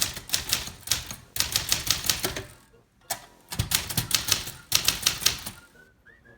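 Manual typewriter being typed on quickly: runs of sharp keystroke clacks with short pauses between them.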